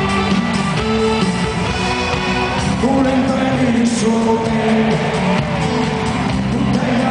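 Live band music played loud through a concert PA, with a voice singing over it.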